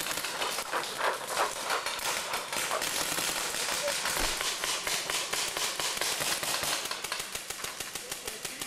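Paintball markers firing in rapid volleys: a dense, continuous stream of sharp pops, several a second.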